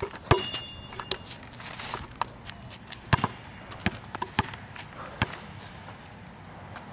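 Basketball bouncing on a concrete court, about six single thuds at uneven spacing, the last about five seconds in.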